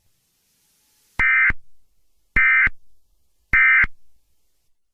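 Emergency Alert System end-of-message tones: three short, identical bursts of SAME digital data, a little over a second apart, signalling the end of the alert.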